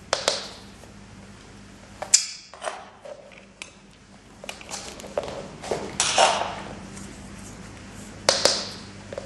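Sharp single clicks from a training clicker, a few seconds apart, with softer rattling and scraping of a small plastic treat cup and spoon between them.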